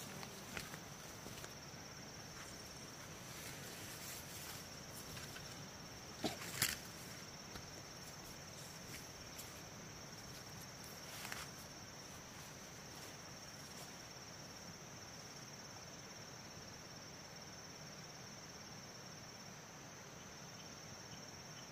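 Insects chirring in one steady, high, continuous note, with a couple of sharp knocks about six to seven seconds in and another around eleven seconds.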